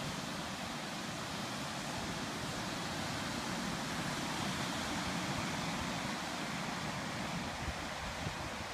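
Ocean surf breaking along a beach, heard as a steady, even wash, with wind on the microphone.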